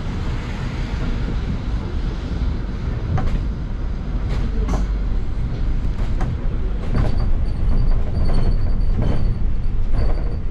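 Cabin noise of a London bus in motion: a steady low rumble of engine and road with scattered rattles and knocks from the bodywork, getting a little louder in the second half. A thin high squeal runs through the last few seconds.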